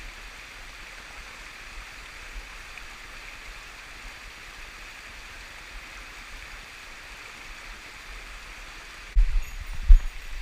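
Mountain stream running over rocks: a steady rushing hiss. About nine seconds in, the sound changes abruptly and loud, irregular low thumps and rumbles take over.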